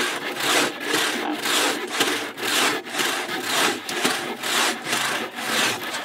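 Two hand saws cutting through a green log at once, a Japanese Silky pull saw and a buck saw: rapid rasping strokes, about two a second, overlapping.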